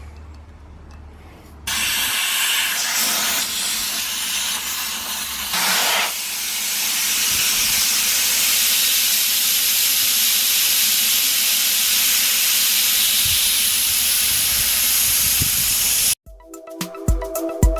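Loud, steady hiss of a high-pressure jet cleaning a dirty car alloy wheel, starting abruptly about two seconds in and cutting off sharply near the end. Background music with a regular beat follows.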